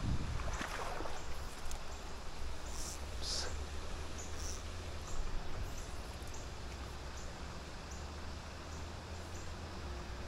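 River-bank ambience: a steady hiss of moving water over a low rumble, with a few brief rustles in the first few seconds. From about four seconds in, a short high chirp repeats roughly every half second.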